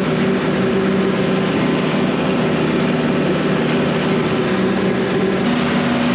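Tractor engine running steadily under load while pulling a rotary cutter (bush hog) through the field, a low, even drone.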